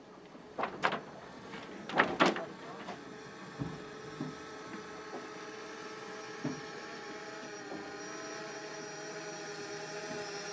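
A few knocks and clicks in the first couple of seconds, then the steady whine of a quadcopter drone's propellers, growing gradually louder.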